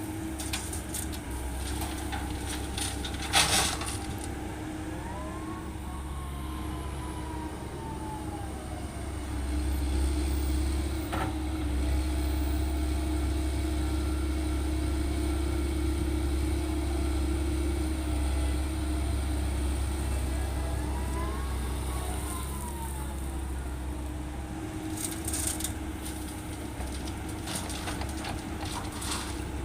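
Komatsu PC130-8 hydraulic excavator working: a steady diesel drone that rises under load through the middle and eases off again. A faint whine rises and falls twice, and a sharp clatter comes about three seconds in, with another burst of clatter near the end.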